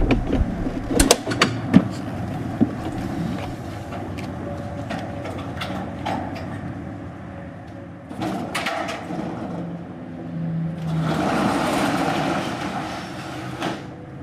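Metal latch clicking about eight seconds in, then a metal roll-up storage unit door rattling for about three seconds as it is rolled open near the end.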